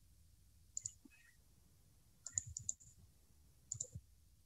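Faint clicks of a computer mouse, used to stop one screen share and start another: a pair about a second in, a quick run of clicks around two and a half seconds, and another pair near the end.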